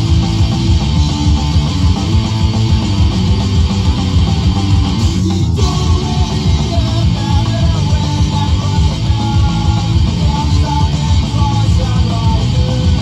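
Melodic hardcore punk rock played from a vinyl record on a turntable: fast, loud, distorted electric guitars driving the song.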